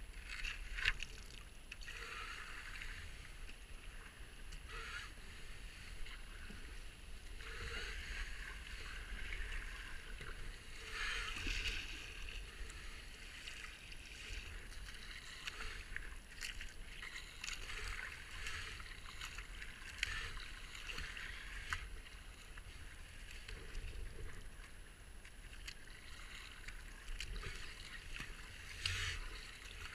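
Kayak paddle strokes splashing through foamy river water, each stroke a swell of water noise, with water swishing along the hull and a few sharp knocks.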